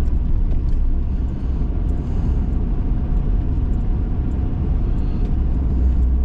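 Car running with a steady low rumble of engine and road noise.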